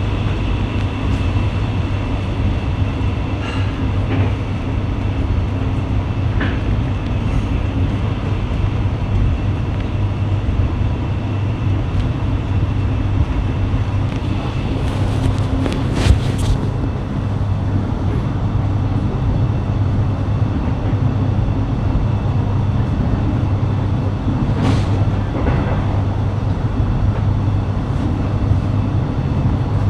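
Electric suburban train running between stations, heard from inside the carriage: a steady running rumble with a faint high whine. There is a sharp knock about halfway through and a lighter one a few seconds later.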